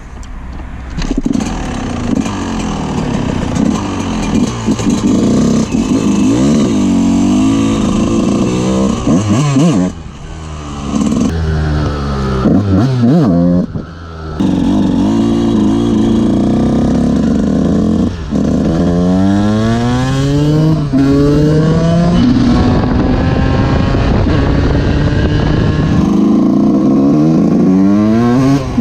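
Yamaha YZ 125 single-cylinder two-stroke motocross engine being ridden hard. Its pitch climbs in repeated rising sweeps as the rider works up through the gears, dropping at each shift, with brief throttle-offs about ten and fourteen seconds in.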